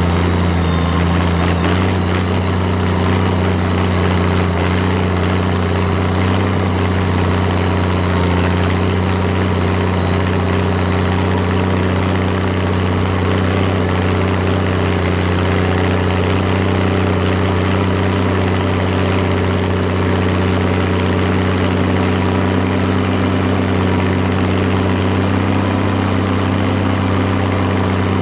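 Valtra BH180 tractor's diesel engine running at a steady, unchanging throttle through a straight exhaust pipe, a deep constant drone.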